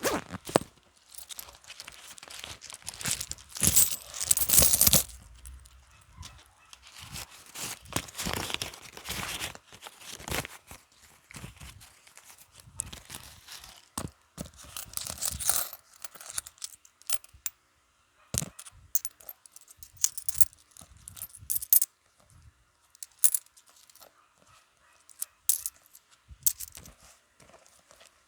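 Paper banknotes being handled and counted: long rustling, crinkling swishes of the bills, then a run of short, sharp flicks a second or two apart as notes are counted off one by one.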